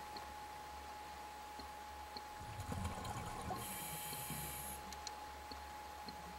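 Scuba regulator breathing underwater: an exhale of bubbles gurgling about two and a half seconds in, then the hiss of an inhale through the regulator about a second later. A faint steady tone runs under it.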